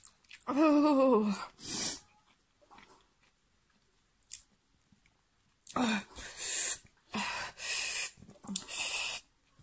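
A woman's pained groan falling in pitch, then hissing breaths. Near the end come four forced breaths blown out through pursed lips, her mouth burning from very hot chilli curry.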